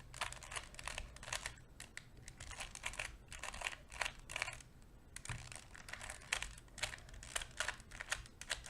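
2x2 Rubik's cube being turned quickly by hand: a rapid, uneven run of plastic clicks as the layers turn.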